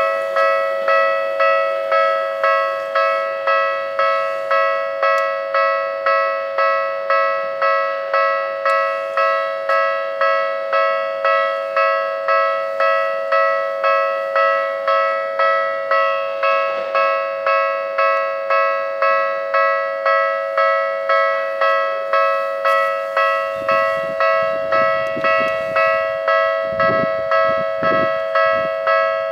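Japanese level-crossing alarm ringing steadily, an electronic bell tone struck about three times every two seconds. From about 23 seconds in, a Y500-series electric train passing over the crossing adds a low rumble and wheel clatter beneath the bell.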